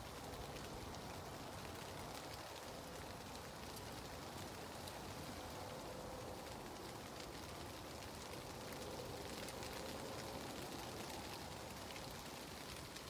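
Light rain pattering steadily on the fabric roof and walls of a pop-up hunting ground blind, many small drop ticks over a soft hiss.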